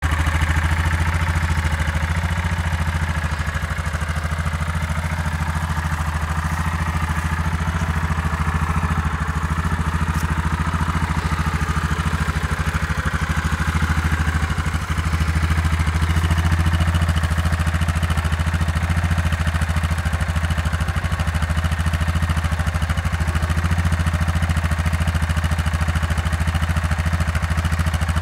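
Yamaha Wolverine 450 ATV's single-cylinder four-stroke engine idling steadily.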